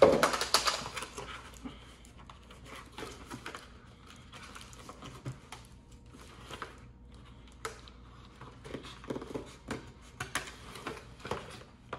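Toy packaging being handled and opened: a loud rustle right at the start, then scattered clicks, crinkles and small handling knocks as a remote controller is freed.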